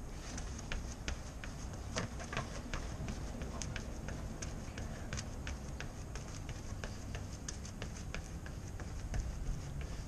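Trials unicycle hopping in place on brick paving: a string of irregular sharp taps and knocks, two to four a second, as the tyre lands and the rider keeps balance. Under it runs a steady low rumble.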